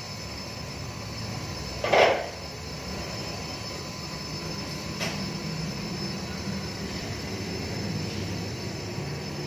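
Hand-tool work on a van's front tie rod end: one loud knock about two seconds in and a lighter click about three seconds later, over a steady low hum.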